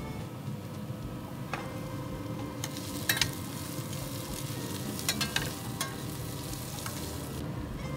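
Sliced onions sizzling in a metal sauté pan on a hot grill, stirred with metal tongs that clink sharply against the pan a few times, loudest about three and five seconds in.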